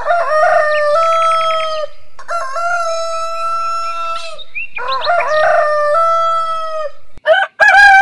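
Rooster crowing cock-a-doodle-doo three times in a row, each crow ending in a long held note, with a fourth crow starting near the end.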